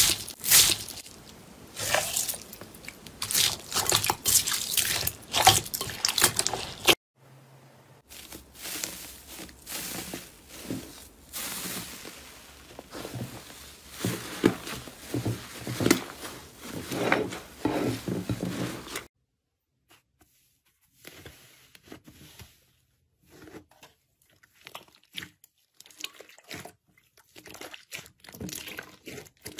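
Hands squeezing slime, in three takes. First a bead-filled crunchy slime crackles densely. Then a pink slime with flakes squishes and crackles. Near the end, quieter clicks and small pops come from a blue clear slime being pressed.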